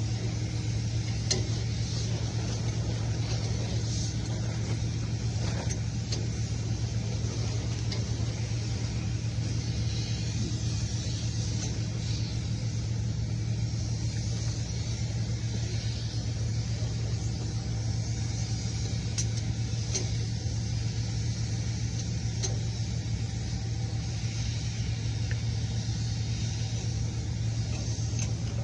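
A machine running with a steady low drone that does not change, with a few faint light clicks over it.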